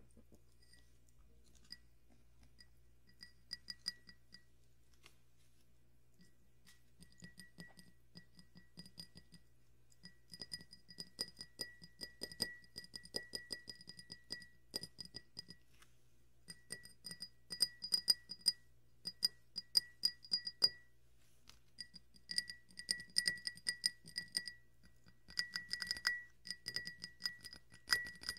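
A drinking glass tapped with the fingers, each tap ringing at the same few clear pitches. The taps are sparse at first, then come in dense runs of rapid tapping lasting a few seconds each.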